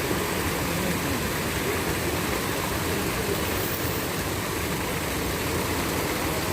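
Fountain water splashing, a steady even rush.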